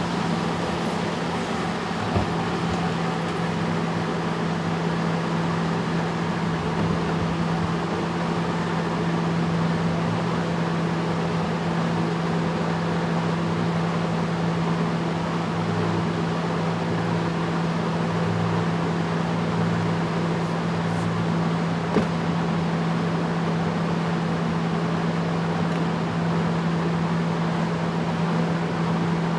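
Fisher & Paykel AquaSmart top-load washing machine in its spin: the tub and clothes gathering speed, with a steady motor hum and the rush of the spinning tub. A faint pulsing comes in mid-way, and there is one sharp click about three-quarters through.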